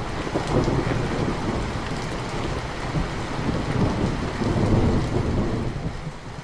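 Rain with a long roll of thunder: a low rumble that swells and ebbs throughout.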